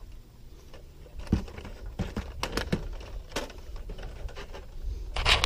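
A telescopic decoy pole being lowered and handled: a string of sharp clicks and knocks with some scraping, starting about a second in and growing busier near the end.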